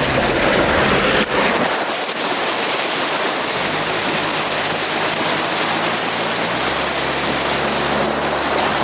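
Creek water rushing and splashing steadily around an off-road truck as it fords the creek, with the truck's engine running low beneath the water noise from about a third of the way in.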